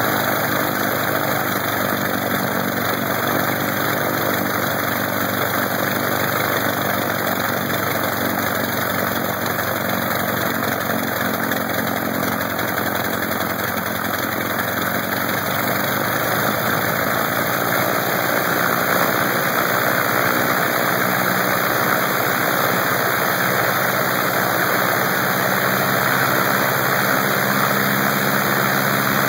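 Lycoming R-680 nine-cylinder radial aircraft engine running steadily on a test stand, its propeller turning, getting a little louder in the second half.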